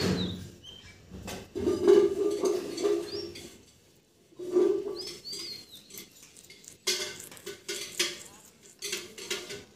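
Metal clinking and rattling in irregular bursts as wires and connectors are handled inside the open metal housing of a domestic flour mill.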